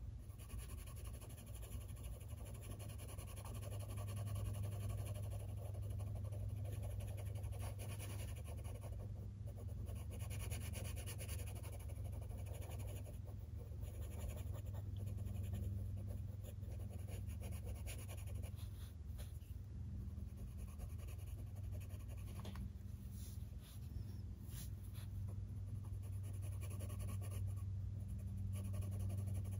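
Colored pencil scratching on paper as an area is colored in, with a dog panting and a low hum that comes and goes.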